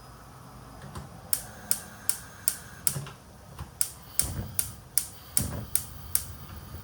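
About a dozen sharp, evenly spaced clicks or taps from kitchen work, two to three a second, starting about a second in and stopping shortly before the end.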